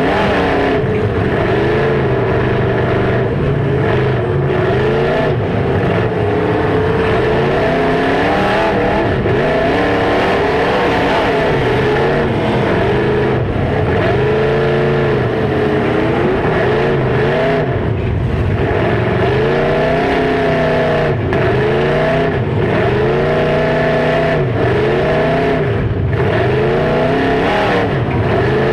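Demolition derby car engines, among them a Chevy 6.0 L LS V8, revving up and down over and over as the cars drive and ram. The sound is loud and constant, and the engine pitch rises and falls every second or two.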